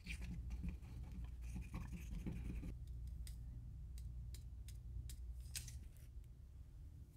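Faint handling of small plastic zip bags of glitter and mica powder over a plastic cup: rustling and scratching for the first few seconds, then scattered light ticks and crinkles as the powder is shaken and scooped out with a plastic spatula. A low steady hum sits underneath.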